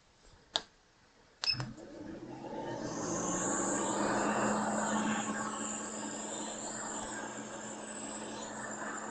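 Hot air rework station switching on with a click, its blower fan then spinning up into a steady airy hiss with a low hum, swelling over a couple of seconds and settling to an even blow.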